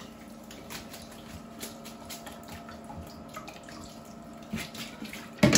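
Liquid dripping from thawed spinach in a metal colander into a bowl below: scattered faint drips, then a sharp knock near the end.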